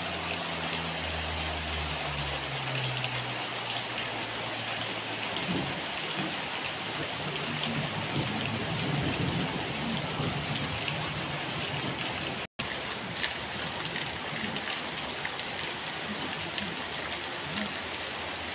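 Steady rain falling on a garden, an even hiss of drops on leaves and grass. The sound breaks off for an instant about twelve seconds in.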